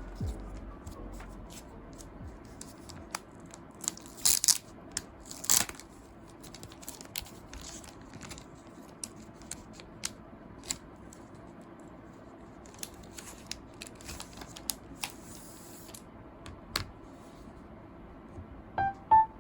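Packaging being handled and opened: scattered small clicks and taps, with two short tearing sounds about four and five and a half seconds in.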